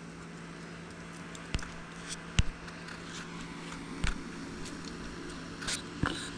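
Footsteps and phone handling while walking on an asphalt driveway: a few sharp, irregular taps, the loudest about two and a half seconds in, over a faint steady hum.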